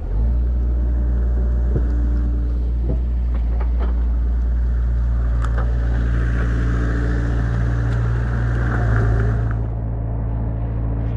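Mini excavator's diesel engine running steadily with a deep hum, over the rush of muddy water pouring through a breach in a beaver dam. The rushing grows brighter for a few seconds in the middle.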